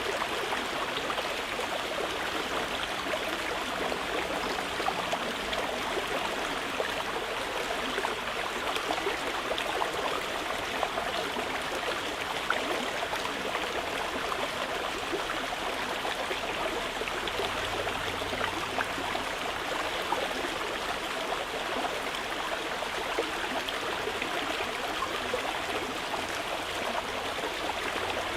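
Mountain river flowing steadily over rocks: an even rush of water with many small splashes running through it.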